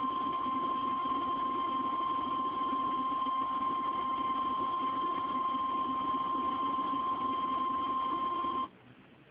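NOAA Weather Radio warning alarm tone: one steady high beep held for several seconds over a buzzy radio hiss, then cut off abruptly near the end. It signals that a severe thunderstorm warning is about to be broadcast.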